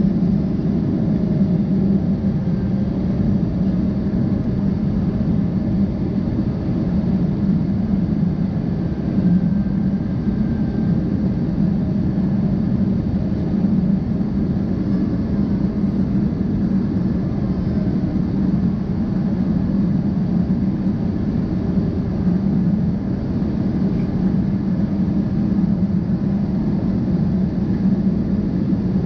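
Steady cabin noise of a twin-engine jet airliner in descent: the engines and the airflow past the fuselage make an even, low rumble, heard inside the cabin over the wing.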